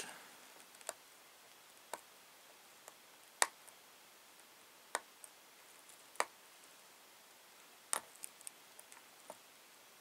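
Scattered small, sharp clicks from fingers picking at a sticker on a small mSATA-to-IDE adapter circuit board. They come about once a second and bunch up near the end, the loudest about three and a half seconds in.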